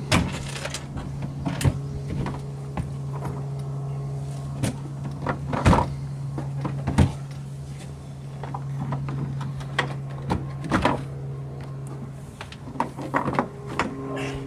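Scattered knocks and short scrapes of plastic cooler mounting blocks and a large cooler being set and shifted into place on a boat deck, over a steady low hum.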